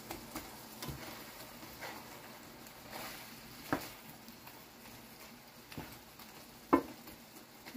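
Wooden spatula and chopsticks stirring sliced mushrooms in a creamy sauce in a frying pan, with scattered soft knocks of the utensils against the pan, the two loudest a little under 4 s and about 7 s in.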